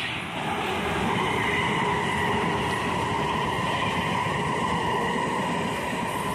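South Western Railway third-rail electric multiple-unit train running past close by on the track, its wheels rumbling over the rails with a steady high whine held over the noise. The sound builds as the train draws near, then stays loud.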